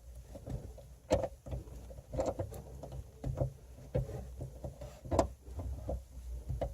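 Scattered light knocks and clicks of hands handling a car speaker and its mounting on the rear parcel shelf while trying to line up the screw holes.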